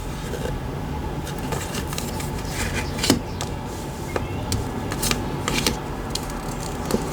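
Tarot cards being handled, with several short card snaps and rustles over a steady low hum.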